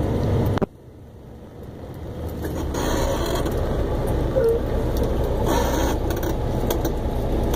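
A semi-truck's engine rumbles steadily, heard from inside the cab as the truck creeps along in stop-and-go traffic. The level drops suddenly less than a second in, then the rumble builds back up, with brief bursts of hiss about three and six seconds in.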